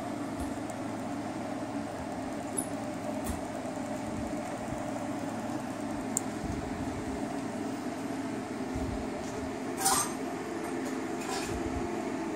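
Steady mechanical hum with a few light clicks and clinks, the loudest about ten seconds in.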